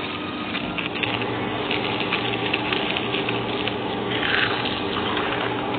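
Eating sounds close to the microphone: a piece of food torn by hand and then chewed, heard as fine crackling clicks over a steady hiss, with a louder rasp about four seconds in.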